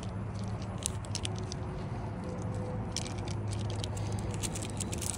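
A small plastic bag crinkling, with light clicks and jingles of small metal lock keys being taken out of it.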